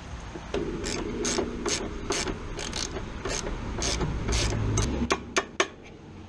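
A hand ratchet wrench worked in quick back-and-forth strokes, about two to three a second, while a fastener is turned, then three sharp clicks a little after five seconds in.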